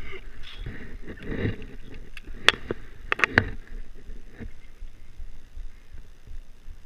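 A few sharp clicks and knocks, one about two and a half seconds in and a quick run of three about a second later, over a low, faint rumble.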